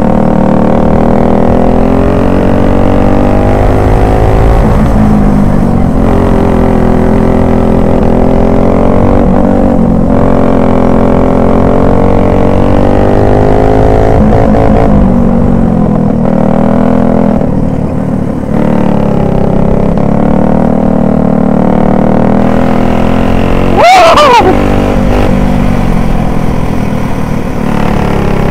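Racing kart engine running at speed on track, its pitch rising and falling as the kart brakes and accelerates through the corners. About 24 seconds in, a short, loud sound drops sharply in pitch.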